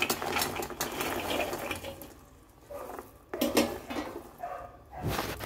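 Fried shakarpara pieces tipped from a steel plate into boiling sugar syrup in an aluminium kadhai, clattering in, then a steel spoon stirring and scraping against the pan. The clatter is busiest in the first two seconds, with a low thump near the end.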